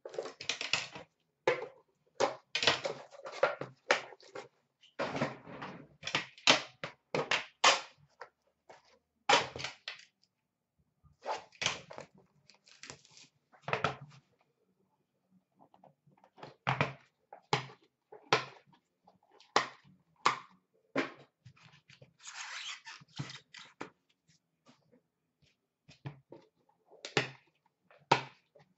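Hands rummaging through hockey card boxes and packs: irregular knocks, scrapes and rustles of cardboard and wrappers, with a longer rustle about two-thirds of the way through.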